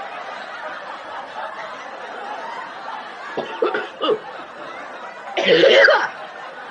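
A person's voice in a brief, loud non-speech burst about five and a half seconds in, with a few fainter short vocal sounds before it, over a steady background hiss.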